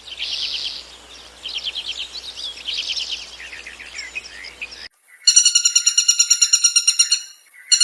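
Birds chirping in repeated quick trills of short high notes. After a sudden break about five seconds in, a louder, rapidly pulsing high-pitched call takes over, at about eight pulses a second.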